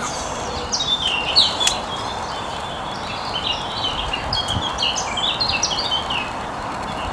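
Small songbirds singing, a busy run of short chirping notes over a steady, even background noise.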